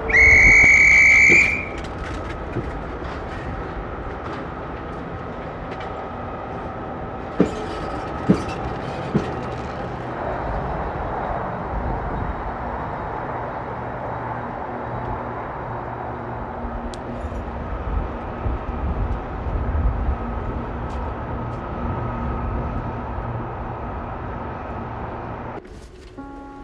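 Passenger train standing at a station platform, its engines giving a steady low rumble, with three sharp knocks about seven to nine seconds in. It opens with a loud, high whistle tone lasting about a second and a half, and the rumble drops away sharply just before the end.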